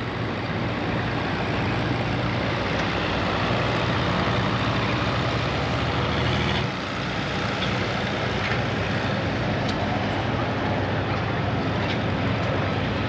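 John Deere 4955 pro stock pulling tractor's turbocharged diesel engine running hard at high throttle, pouring out a loud, steady note. The note drops briefly about six and a half seconds in, then carries on steadily.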